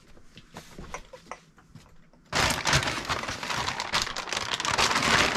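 Plastic packaging rustling and crinkling loudly as it is handled, starting abruptly a little over two seconds in after a couple of seconds of faint handling clicks.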